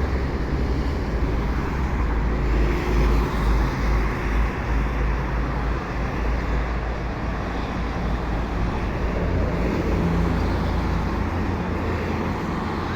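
Steady road traffic noise with a low, fluctuating rumble and faint engine hum; no single vehicle passes by.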